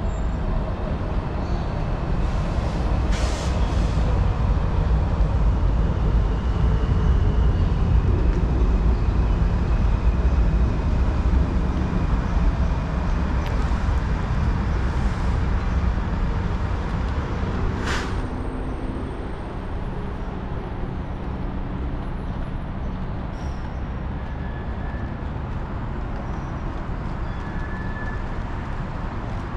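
A Washington Metro train's low rumble. It builds to its loudest about eight to eleven seconds in, then falls away after about nineteen seconds to a steady lower rumble. There is a short hiss a few seconds in and a sharp click at about eighteen seconds.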